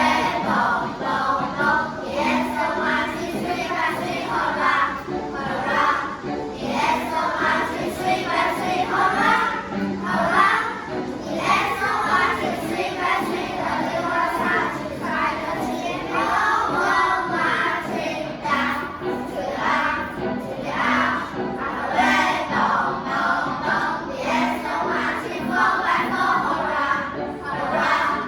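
A class of schoolchildren singing an English song together in chorus.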